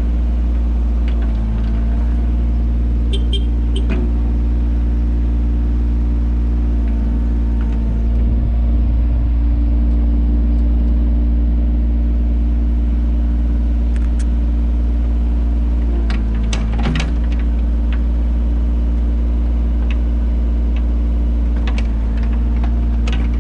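Mini excavator's diesel engine running steadily under work, a little louder for a few seconds about a third of the way in, with a few short sharp knocks and clicks.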